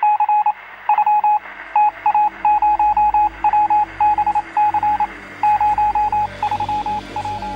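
Electronic beeps at a single pitch, keyed on and off in quick irregular groups of short and longer pulses, like Morse code, over a low hum.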